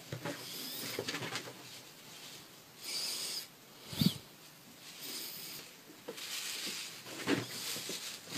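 A kitten and a rabbit tussling on a bed: rustling and scrabbling on the sheet, with short hissy bursts and a sharp thump about four seconds in, the loudest sound, and another thump near the end.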